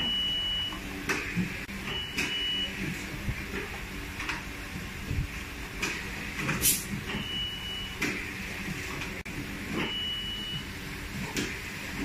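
A small metal mini-PC case and its screws being handled on a work mat: scattered clicks and knocks, the sharpest about two-thirds of the way through. Under them runs a steady machine hum, with a short high electronic beep coming back every couple of seconds at uneven intervals.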